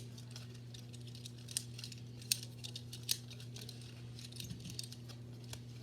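Pokémon trading card booster pack being opened and its cards handled: scattered light clicks, snips and crinkles a few times a second, over a steady low hum.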